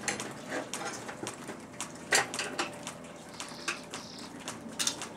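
Scattered, irregular clicks and knocks of hard objects being handled and set down.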